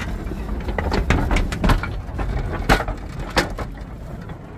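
Coal-mine car rattling and knocking as a rope hauls it up the inclined shaft: a steady low rumble with irregular sharp knocks, the loudest about two and three-quarter seconds in.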